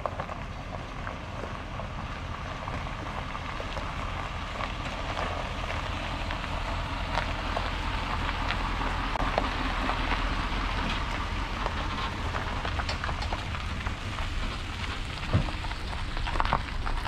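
Chevrolet Silverado HD pickup towing a travel trailer, rolling slowly over a gravel road. The tyres crunch and pop on the stones over a low engine rumble, getting louder as the rig passes, with a couple of sharper knocks near the end.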